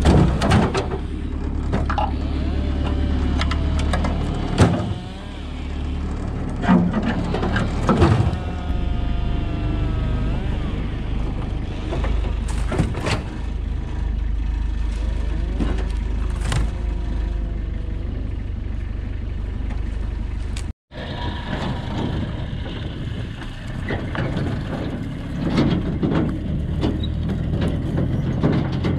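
A farm vehicle's engine running with a steady low drone, with sharp cracks and scraping as pruned grapevine canes are pulled from the trellis wires. After a sudden cut about two-thirds through, a different, rougher engine drone follows.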